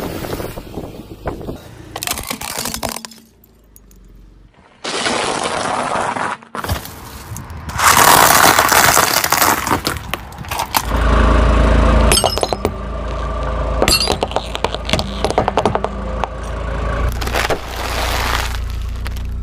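Car tyres rolling over and crushing a run of different objects, cut together: crunching, crackling and breaking sounds, with a low rumble from the car at times. The sound changes abruptly several times as the clips cut.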